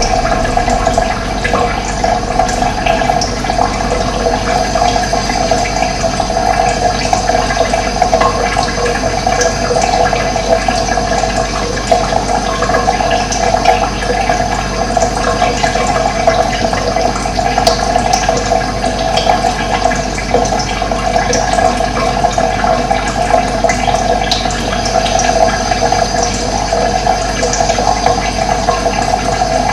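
Running water flowing steadily, an even, unbroken rush.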